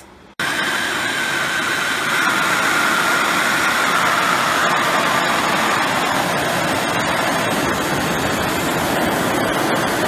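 A propane torch burning a large open flame with a steady, loud rushing hiss that starts suddenly about a third of a second in. A faint whistling tone in it sinks slightly in pitch over the first few seconds.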